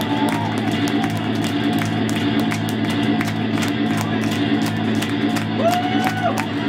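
Live rock band's amplified instruments left droning on one steady chord, with scattered audience clapping and a couple of whoops near the end.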